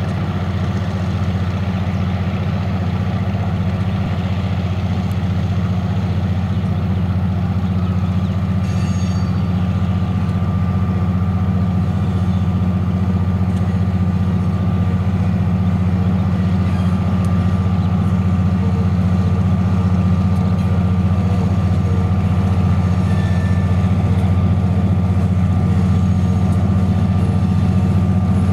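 EMD SW1500 switcher locomotive's 12-cylinder 645 diesel engine working hard under a heavy cement train's load: a steady, deep drone that grows slowly louder as the locomotive draws near.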